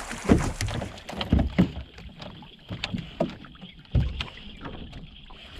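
Irregular knocks, bumps and splashes on and around a small fishing boat or kayak as a bass is landed and handled aboard.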